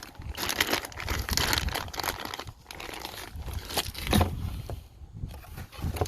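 Packaging crinkling and rustling in bursts as a new impact wrench is unpacked, with a low knock about four seconds in.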